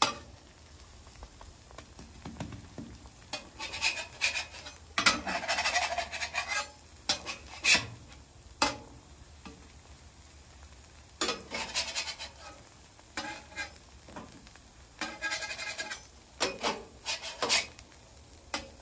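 Metal spatula scraping across a steel flat-top griddle as it slides under and flips cheese crisps, in a series of irregular scrapes and clatters with faint sizzling between them.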